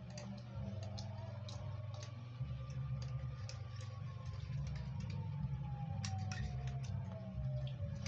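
Scattered light clicks of a spoon against a bowl as chocolate cereal in milk is eaten. Behind them a faint tone slowly rises and falls like a distant siren wail, over a low rumbling hum.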